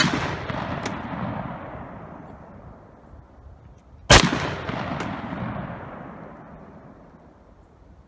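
Two shots from an M1 Garand rifle firing .30-06 hunting rounds, one right at the start and one about four seconds in. Each is followed by a long rolling echo that dies away over about three seconds, with a faint sharp tick under a second after each shot.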